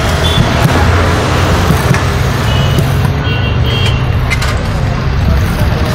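Steady low rumble of a motor vehicle engine, with street noise around it.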